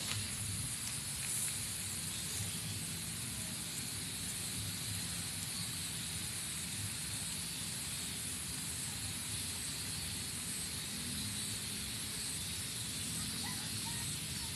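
Steady outdoor background: a low rumble and a high hiss, with a faint knock or rustle near the start.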